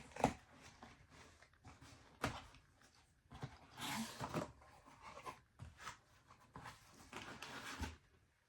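A cardboard shipping box being opened and handled, with a few knocks against the cardboard and stretches of rustling and scraping of cardboard and packing.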